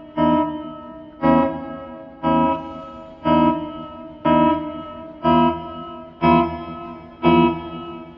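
Background music score: a chord struck about once a second, eight times in a steady pulse, each ringing out and fading before the next.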